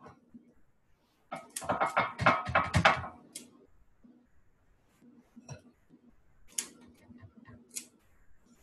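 Kitchen utensils clattering and scraping in a mixing bowl while cookie dough is scooped: a rapid run of knocks lasting about two seconds, then a few separate light taps.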